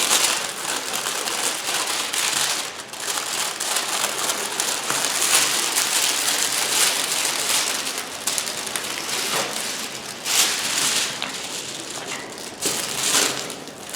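Continuous crinkling and rustling of a plastic sheet being handled, with a few short pauses.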